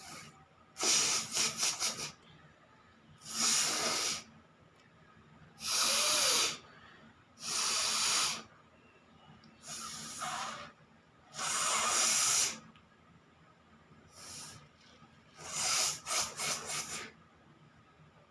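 A person blowing her nose hard, again and again: about eight forceful nasal blows, each roughly a second long with short pauses between, the first and last broken into quick stuttering pulses.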